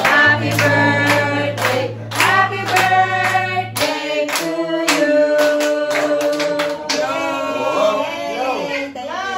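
A small group singing a birthday song together, a woman's voice among them, with some hand clapping.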